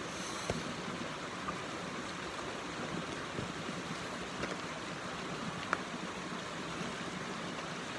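Creek water running, a steady rushing wash, with a few faint clicks over it.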